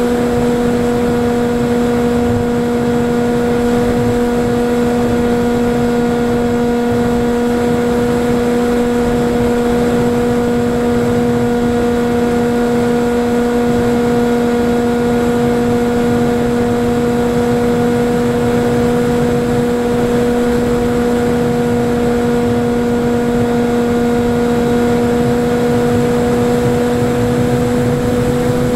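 Electric motor and propeller of a Falcon Evo flying wing heard through its onboard camera, a steady drone that holds one pitch, over rough wind noise on the microphone.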